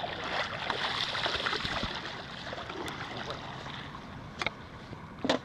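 Shallow lake water sloshing and splashing while a large hooked pike is brought in and landed by hand. The sound is loudest in the first couple of seconds, and a few sharp splashes or knocks come near the end.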